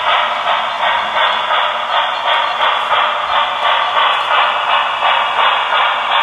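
Model steam locomotive's sound decoder chuffing through its small onboard speaker, an even rhythm of about two chuffs a second, thin with no bass.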